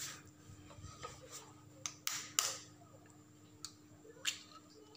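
Knife blade tapping a chicken egg to crack its shell: a few light taps, then louder cracks about two seconds in and again a little after four seconds.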